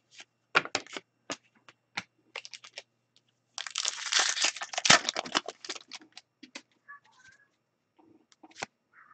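Hands handling a hockey card pack: a run of sharp clicks and ticks, then the plastic-foil wrapper crinkling and tearing open for about two seconds, then a few more light clicks as the cards are handled.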